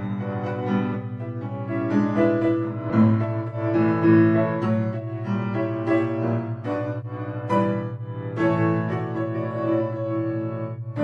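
Gentle piano music with separate notes, over a steady low tone that pulses rapidly underneath.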